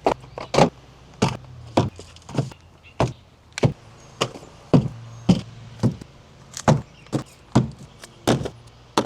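A regular series of sharp knocks or thuds, about two every second, over a faint steady hum.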